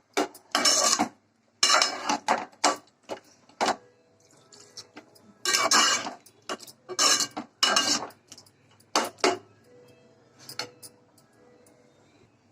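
Metal utensil scraping and clanking against a cooking pot in a series of short strokes with pauses between them, as when food is stirred and scraped in the pot.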